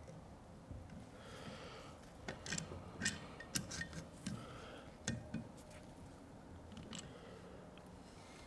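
Light metallic clicks and clinks, scattered and mostly in the first five seconds or so, as a valve spring compressor is being adjusted and fitted against a boat motor's cylinder head.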